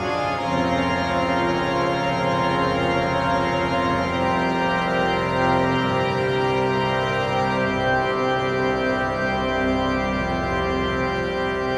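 Background film score: slow, long-held chords with no beat, the notes shifting every few seconds.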